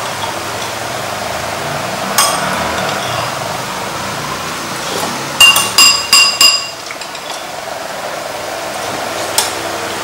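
Tableware clinking during a meal: one clink about two seconds in, then four quick sharp clinks with a ringing tone around the middle, and one more near the end, over steady background noise.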